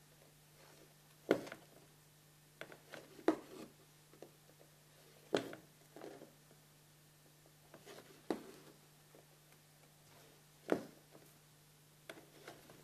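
Crewel wool and needle passing through linen stretched taut in an embroidery hoop: a short tap or pop each time the needle pierces the fabric and the thread is pulled through, about five sharper ones a few seconds apart, with softer rubbing sounds between.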